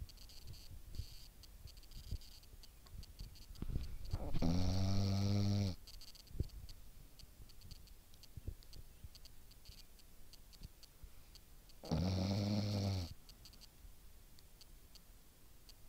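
Puppy snoring in her sleep: two long, buzzing snores, each about a second and a half, one about four seconds in and the next near the thirteenth second.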